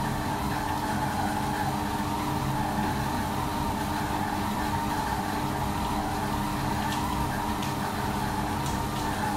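Monsieur Cuisine Connect kitchen robot's motor running steadily with an even hum, mixing bread dough in its closed steel bowl.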